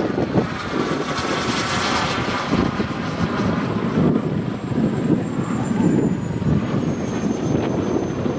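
Miniature turbine engine of a radio-controlled model jet flying past. The sound swells about one to two seconds in, and a thin high turbine whistle slides slowly down in pitch through the second half, over a low rumble of wind on the microphone.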